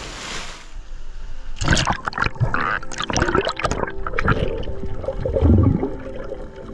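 A splash's spray dies away in the first second. Then underwater bubbling and gurgling follow, with irregular crackles and a low surge of water, heard with the camera submerged as a swimmer moves through the sea.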